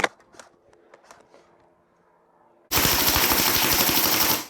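Army Armament R36 gas blowback airsoft rifle firing a full-auto mag dump: a very rapid burst of shots starting past the middle, lasting under two seconds and stopping abruptly. A few faint clicks come before it.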